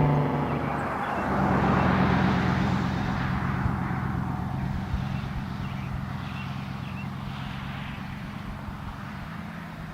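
The last of the Federal Signal Thunderbolt 1000T siren's falling tone dies out just at the start. Then a vehicle's steady low engine hum follows, with road hiss that swells and slowly fades.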